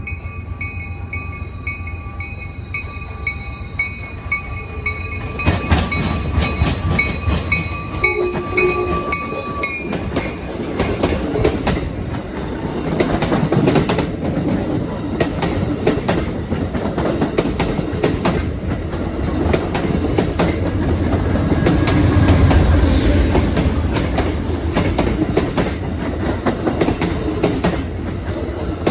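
A train passing close by, its wheels clacking rhythmically over the rail joints under a steady rumble that swells about two-thirds of the way through. Steady ringing tones sound through the first several seconds, fading out as the clacking builds.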